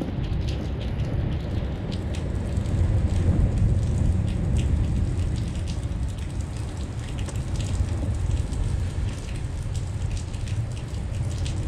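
Steady rain falling, with scattered sharp ticks of drops striking close to the microphone, over a constant low rumble.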